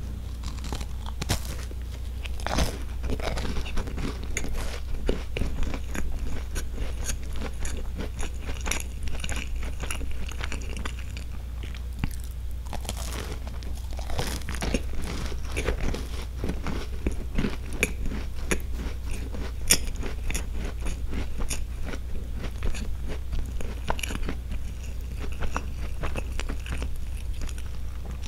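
Close, crisp biting and chewing of a pink Roppongi Palette sandwich biscuit, with irregular crunches and mouth sounds throughout.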